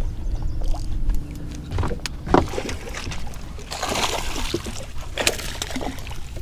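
A hooked smallmouth bass splashing at the surface beside a boat a little past the middle, amid sharp knocks and clatter from handling the rod and landing net, over a steady low rumble.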